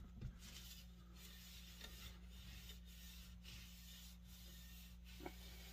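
Faint rubbing of a cloth rag wiping linseed oil along a wooden axe handle, in repeated strokes, with one light tap near the end.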